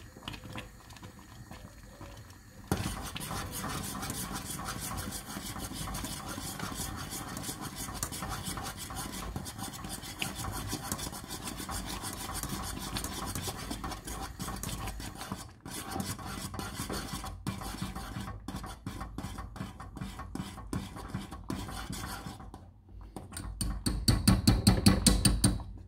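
Continuous rapid rasping and scraping of kitchen utensils in food preparation, with a louder run of quick low knocks near the end.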